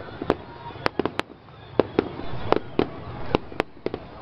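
Fireworks display going off: about a dozen sharp bangs at uneven intervals, several a second at times, over a low rumble.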